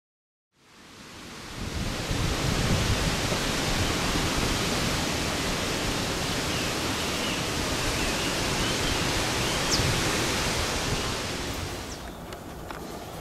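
A steady rushing noise with no pitch to it, fading in after a brief silence and easing off near the end.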